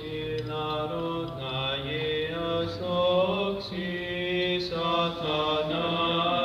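Byzantine chant at Orthodox Vespers: a chanter sings a slow, melismatic line of held notes that step up and down, over a steady low drone note (ison).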